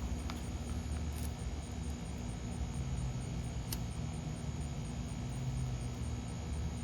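Steady low background rumble and hum, with a single faint click a little under four seconds in.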